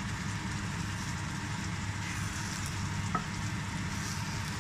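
Thick tomato-onion egg curry gravy simmering and sizzling in a nonstick pan while a spatula gently stirs it and spoons it over halved boiled eggs, over a steady low hum. A light click about three seconds in.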